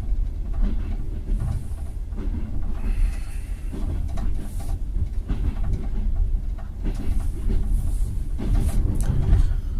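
Passenger train carriage running on the rails: a steady low rumble with irregular knocks and rattles.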